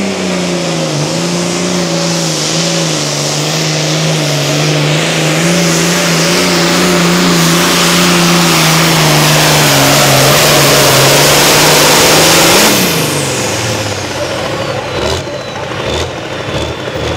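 A turbocharged International Harvester 1066 pulling tractor's diesel engine runs flat out under load, holding a steady high pitch as it drags the sled down the track. About thirteen seconds in the throttle is cut at the end of a full pull. The engine winds down toward idle while a high whine falls away.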